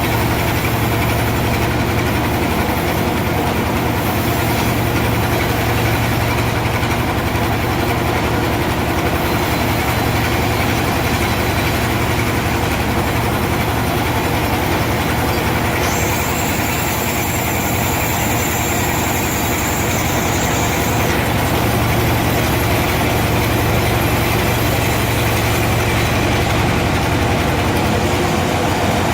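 Sawmill machinery running steadily, with a low engine-like hum. A high-pitched sound joins it for about five seconds past the middle.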